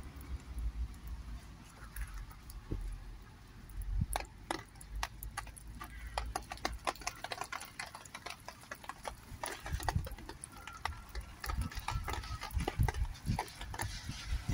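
Low wind rumble on the microphone, then a run of sharp irregular clicks, then soft thumps of footsteps on gravelly soil in the last few seconds.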